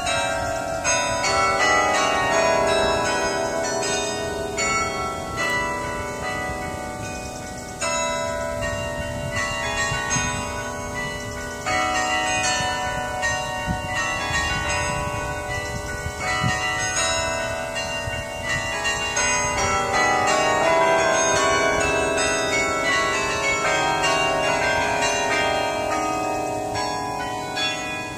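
Carillon bells of the Thomas Rees Memorial Carillon playing a tune: many struck bell notes, several sounding together, each ringing on into the next.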